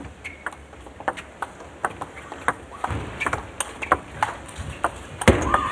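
Table tennis rally: the ball clicking off the rackets and the table in quick succession, several sharp ticks a second, with a louder hit near the end.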